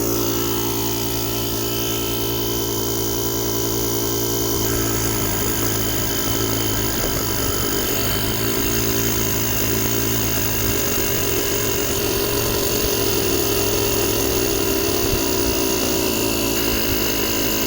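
Built-in air compressor of a JomGand JQP2250 jump starter running steadily, with a steady hum of several tones, as it inflates a flat tyre toward 30 PSI.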